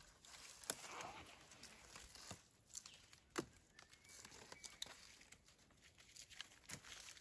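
Faint rustling and crackling of dry leaf litter and twigs on a forest floor, with a few sharp snaps scattered through.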